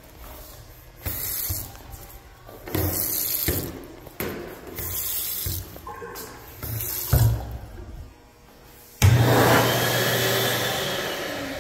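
Public restroom toilet with a chrome flush valve flushing: a sudden loud rush of water about nine seconds in that slowly fades, with a falling swirling tone as the bowl drains. Before it come a few short bursts of hissing.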